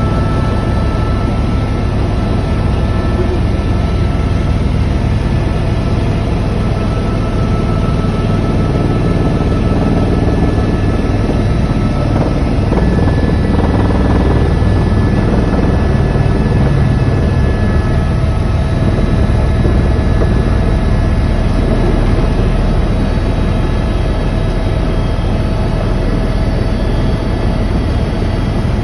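Tour helicopter's turbine engine and rotors heard from inside the cabin in flight: a loud, steady drone with a thin, constant whine over it.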